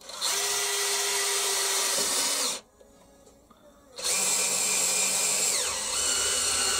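Cordless drill driving a tap into metal to cut a thread, its clutch set to low torque. It runs twice, for about two and a half and three and a half seconds, with a brief pause between, and a short falling whine partway through the second run.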